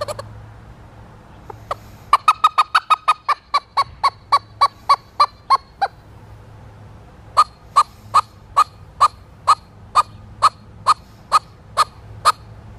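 Handmade squirrel call worked in sharp, squirrel-like barks: a fast run that slows as it goes, then after a short pause a slower, even series of about a dozen barks, about two a second.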